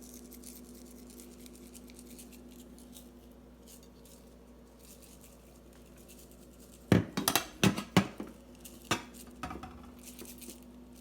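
Kitchen clatter: a quick run of sharp clinks and knocks of hard kitchenware against dishes about seven seconds in, and a few lighter ones about two seconds later. A low steady hum runs underneath.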